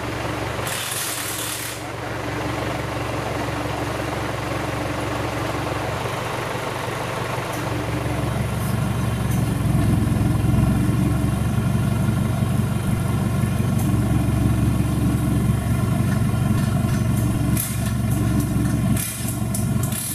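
Engine of a modified off-road 4x4 competition truck running steadily, growing louder about eight seconds in and staying at that higher level.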